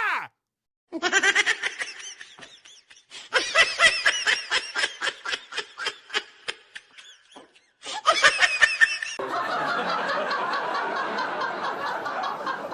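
Laughter sound effects: a laugh in quick, rhythmic bursts, a brief gap, then another short laugh. About nine seconds in this gives way to a denser, continuous background of laughter.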